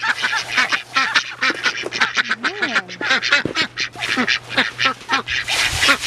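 A flock of ducks quacking rapidly and constantly, many at once, as feed arrives. Near the end comes a short rush of grain poured through the wire mesh.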